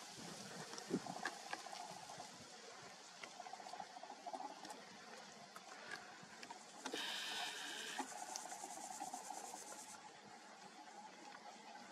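Faint outdoor ambience with scattered light ticks. About seven seconds in comes a short whirring whine lasting about a second, the zoom motor of a Nikon P1000 superzoom camera picked up by its own microphone.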